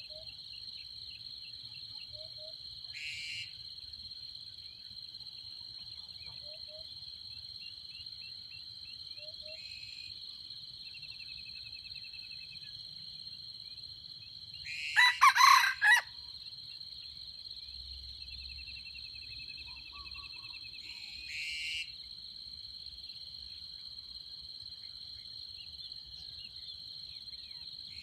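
A red junglefowl rooster crows once, a short clipped crow about halfway through, over a steady high-pitched insect chorus. A few short, fainter calls come now and then.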